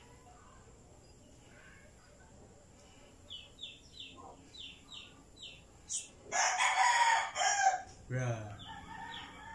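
A rooster crowing once, a loud call about a second and a half long past the middle, over a small bird's quick series of high chirps.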